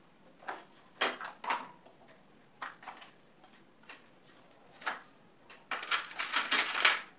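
Scattered light clicks and knocks of hard objects being handled, then a rapid rattling run of clicks lasting just over a second near the end.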